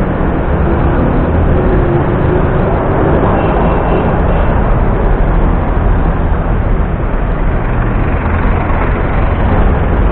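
Road traffic passing close by, cars going past with a steady low rumble of engines and tyres.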